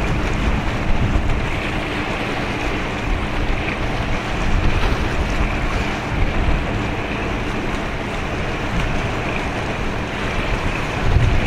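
Wind buffeting the microphone in low rumbling gusts over a steady rush of sea noise.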